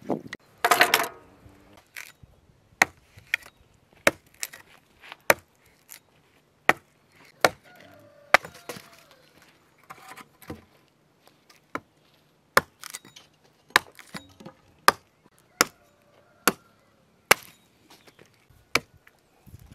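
A hatchet chopping dry branches on a log: sharp single strikes, irregularly spaced at roughly one a second. It follows a short burst of splashing water from a hose at the start.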